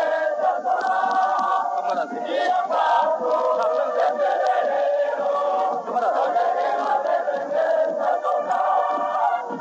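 A large crowd chanting and cheering in unison, answering a proclamation of independence. The sound comes through an old, heavily distorted recording.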